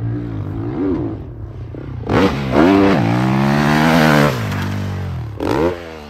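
Honda CRF450RW factory motocross bike's four-stroke single-cylinder engine riding past under throttle. It is faint for the first two seconds, then loud, with the revs climbing and holding before falling away, and a short throttle blip near the end.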